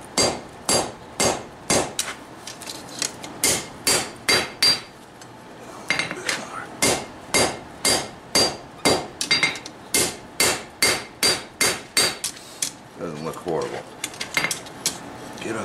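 Hammer blows on hot steel over an anvil, about two a second, each with a bright metallic ring, as the mower-guide steel is drawn into an even rectangle. The blows pause briefly about five seconds in and come softer and sparser near the end.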